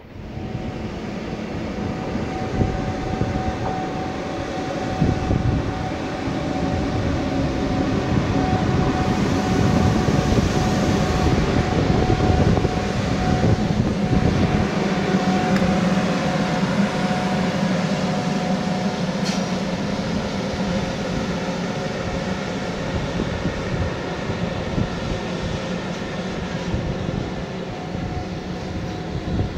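Container freight train hauled by ÖBB electric locomotives rolling past, a steady rumble of wheels on rails with a thin high whine over it. It swells to its loudest about halfway through, then slowly eases.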